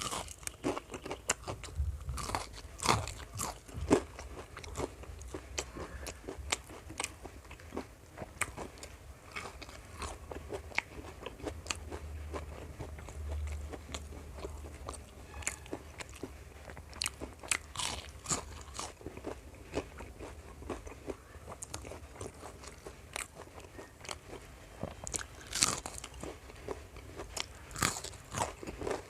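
A person biting and chewing crisp fried food close to the microphone, with many sharp, irregular crunches throughout.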